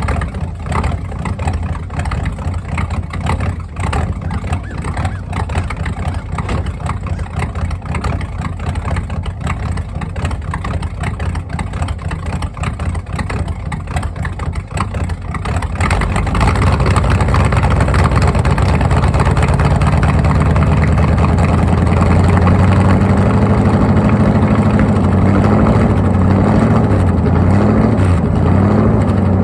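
Ford 302 V8 in an F-150, cold, idling unevenly through its exhaust. About sixteen seconds in the throttle is opened and the engine is held at a steady, louder fast idle, its pitch creeping up and wavering near the end, as the owner works the throttle to warm the engine.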